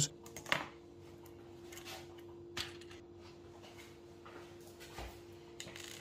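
A few light clicks and taps as multimeter test probes and small fuses are handled on a hard worktop, over a steady faint hum.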